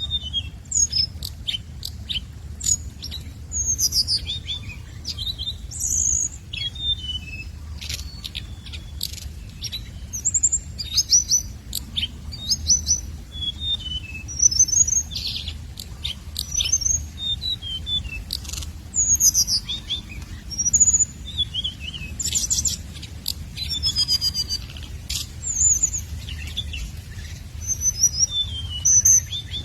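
Hồng hạnh songbird calling: a lure recording of many short, high chirps and quick falling trills, one phrase after another with brief gaps, over a steady low hum.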